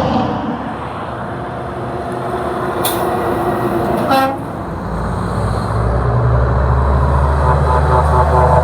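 A truck's air horn gives one short toot about four seconds in, over steady road traffic. A heavy truck's engine rumble then builds and stays loud to the end as it passes close.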